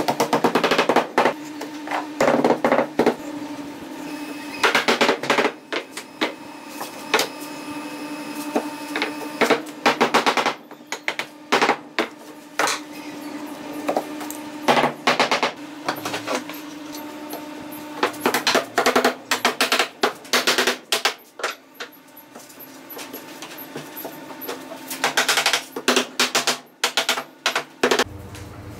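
Bursts of quick, sharp knocks and taps, like a hammer or mallet striking wood, coming in clusters every few seconds over a steady hum.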